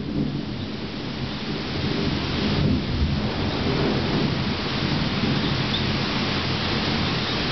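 Thunder rolling over steady rain, a low rumble that swells again a little under three seconds in.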